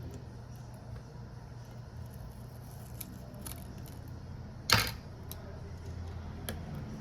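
Small clicks and taps of hand tools working on a smartphone, with one loud sharp click about two-thirds of the way through, over a steady low hum.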